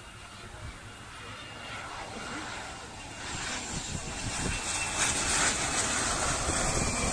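Private jet's twin rear-mounted turbofan engines on landing approach: a rushing jet noise with a faint high whine, growing steadily louder over the first five seconds as the jet comes close, then holding.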